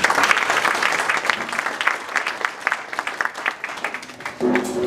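Audience applauding, many hands clapping together; the clapping thins out near the end.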